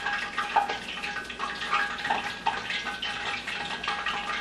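Cooking oil heating in a frying pan, popping and crackling in small irregular clicks; the popping is a sign that the oil is not yet ready for frying.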